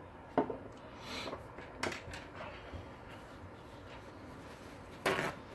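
A few light clicks and knocks as a CPU water block is handled and set down on a desk, with a brief louder rustle near the end.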